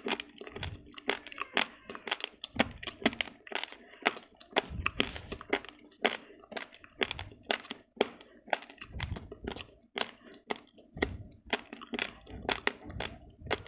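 Raw basmati rice grains crunched between the teeth: sharp, irregular cracks several times a second, with dull low thumps every couple of seconds.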